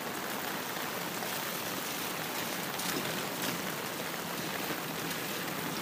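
Heavy rain pouring steadily onto a paved street and parked cars, an even hiss of countless drops.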